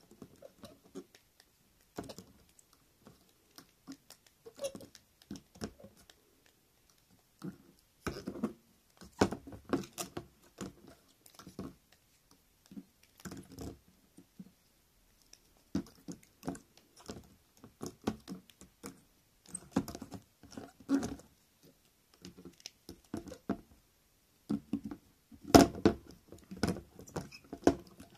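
Handmade beetle figures with wire legs scraping, tapping and knocking on an upturned plastic basin and against each other, an irregular run of clicks and scrapes that is loudest near the end.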